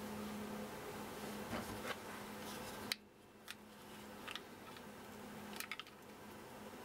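A few light clicks and rustles as a plastic plug-in power adapter and its cable are handled, over a faint steady hum. The background noise drops abruptly about three seconds in.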